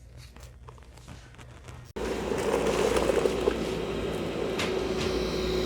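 Dreame D9 robot vacuum running on low carpet: a steady motor hum with a held tone, cutting in abruptly about two seconds in, with a few sharp clicks as it sucks up scattered debris such as rice and beans. Before it, only faint scattered clicks.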